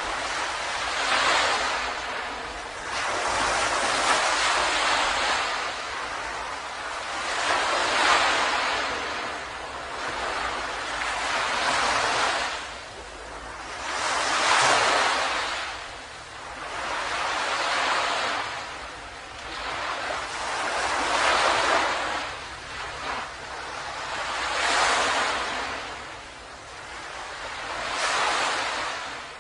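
Ocean waves breaking and washing up a beach, the surf swelling and fading in repeated surges every three to four seconds.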